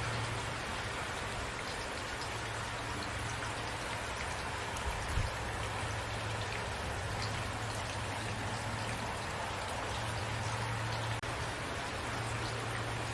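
Steady rain falling, an even hiss with scattered individual drops ticking through it and a low hum underneath. The sound drops out for an instant about eleven seconds in.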